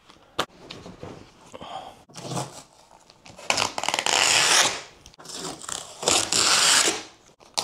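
Packing tape being ripped off the plastic-wrapped front of a 3D printer: two long tearing pulls, about three and a half seconds in and again about six seconds in, after some softer rustling of plastic wrap.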